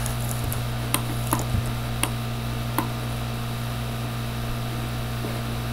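Steady low electrical hum with four light clicks, like desk clicks at a computer, spread over the first three seconds.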